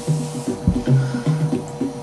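Background music: a quick, steady rhythm of short, low pitched percussive notes.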